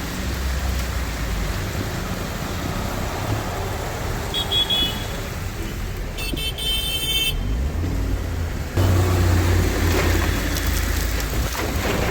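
Road traffic running on wet streets, with a short vehicle horn toot about four and a half seconds in and a longer horn blast around six to seven seconds; the low traffic rumble gets louder about nine seconds in.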